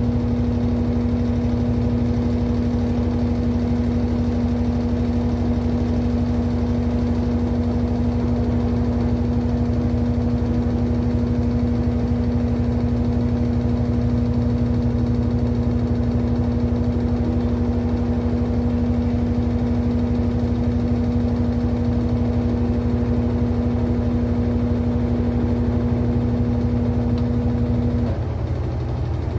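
Brastemp BWT09A 9 kg top-load washing machine in its spin cycle: a steady mechanical hum with a strong humming tone from the drum and motor. Near the end the humming tone cuts off and the sound drops a little quieter.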